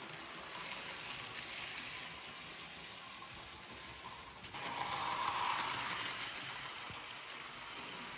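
Hornby OO gauge Toby the Tram Engine model running on the track: a steady whir of its small motor and wheels as it passes close by. About halfway through the sound changes suddenly and a louder stretch of running noise follows, easing off after a couple of seconds.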